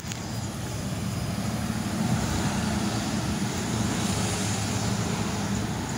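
Road traffic passing, with the low, steady engine drone of a Freightliner box truck moving along with the cars, a little louder from about two seconds in.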